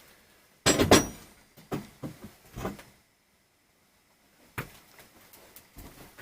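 A few loud knocks and clatters, the loudest about a second in, then softer knocks and a sharp click. It sounds like objects being handled and set down.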